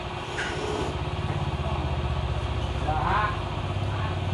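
A small engine idling with a steady low, pulsing putter that comes up about a second in.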